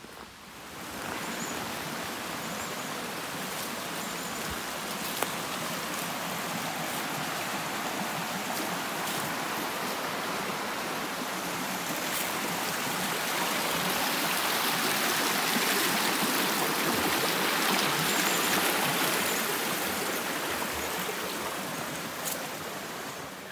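Water in a stream rushing steadily, growing louder toward the middle and dropping away near the end.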